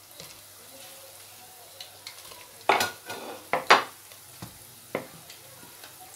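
Wooden spatula stirring pakoras through thick kadhi in an aluminium pot. Several sharp scrapes and knocks against the pot come in the middle, the loudest about three and a half seconds in, and one more about five seconds in.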